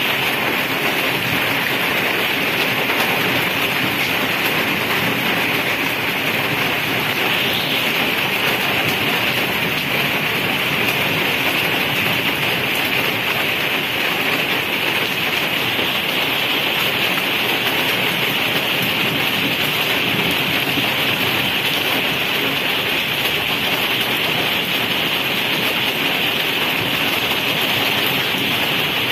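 Heavy rain falling on a flooded paved road, a steady dense hiss of drops splashing into standing water.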